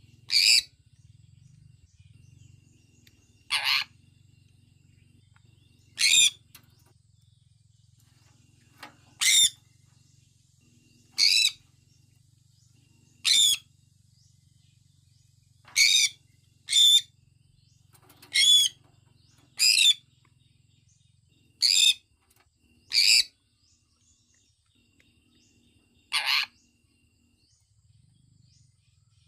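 Sun conure calling: about thirteen short, loud, high chirps with a wavering pitch, one every one to three seconds, the last a little before the end.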